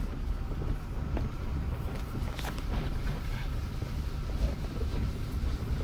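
Car driving slowly over a muddy dirt road, heard from inside the cabin: a steady low rumble of engine and tyres, with a few light knocks.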